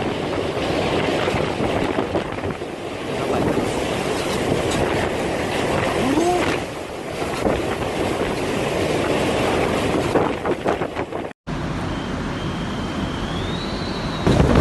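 Storm-force typhoon wind blowing hard and buffeting the microphone. The sound breaks off abruptly about eleven seconds in, and a thin high whistle then rises and holds over the wind.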